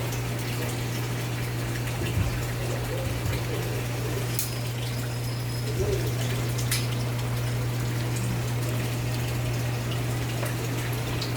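A water pump running: a steady low hum under an even rushing, watery noise, with a few light clicks and knocks.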